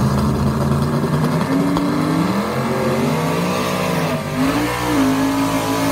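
Drag-race engines revving hard at the starting line, their pitch rising and falling again and again, while one car spins its rear tyres in a smoky burnout.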